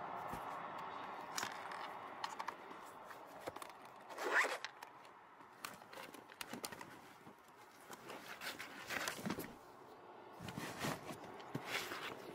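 Zippers on bags and cases being pulled open and shut, among rustling of fabric bags and the small clicks and knocks of gear being handled. The loudest moment is a quick rising zip about four seconds in, with another zip around nine seconds.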